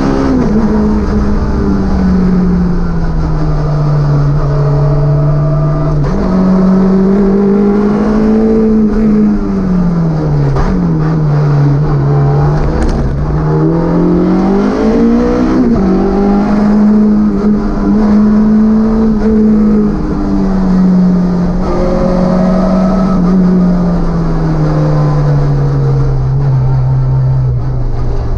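Citroën Saxo VTS S1600 maxi rally car's four-cylinder engine heard from inside the cabin, its note rising under acceleration and dropping as the driver lifts off and changes gear through tight bends.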